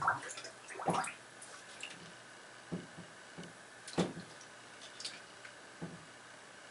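Bathtub water splashing and dripping in a handful of short, separate sounds as a hand-held RC model submarine is moved in the water.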